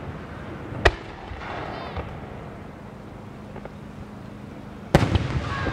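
Japanese aerial fireworks shells, 5-gō (about 15 cm), bursting overhead: a sharp bang about a second in and a louder one near the end, each trailing off over a second or so.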